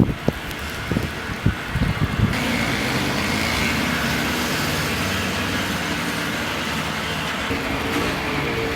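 A few sharp knocks in the first two seconds, then a motor vehicle running steadily through the rest, its engine hum under a constant rush of noise.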